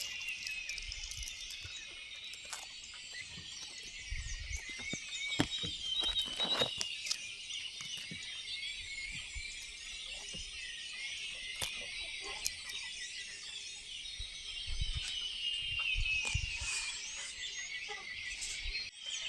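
Dawn chorus: many birds chirping and singing at once in a dense, overlapping chatter of high calls and short whistled glides. A few low thumps come through beneath it.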